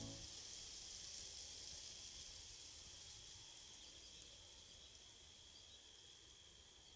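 Faint chorus of insects in a meadow: a steady high buzz with quick high chirps, about three a second. The last note of a digital piano dies away at the very start.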